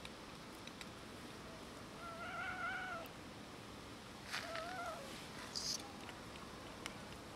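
A cat meowing twice: a wavering call of about a second, then a shorter one a couple of seconds later, with a few sharp clicks in between.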